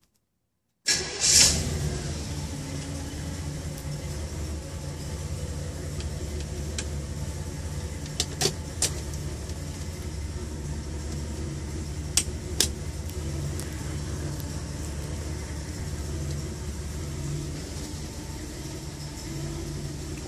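A 1966 Chevrolet Impala SS's 283 small-block V8 fires up suddenly about a second in, with a brief loud burst as it catches, then settles into a steady idle. It is being started after sitting unused for some time.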